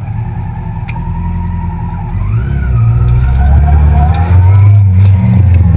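Yamaha R6's inline-four engine running at low revs as the bike pulls away, getting louder from about two seconds in.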